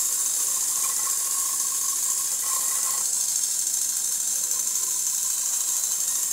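Wound mechanical alarm clock movement running, its wheel train giving a steady high hiss.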